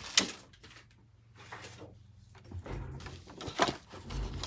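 Craft materials being handled on a table: a sharp click just after the start, then, from about halfway, rustling of card and paper with a few soft knocks.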